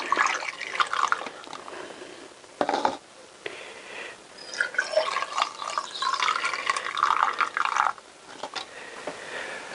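Fluid poured from a plastic jug through a funnel into the ports of a motorcycle cylinder head, trickling and gurgling as the ports fill for a valve-sealing leak test. There is a short knock about three seconds in.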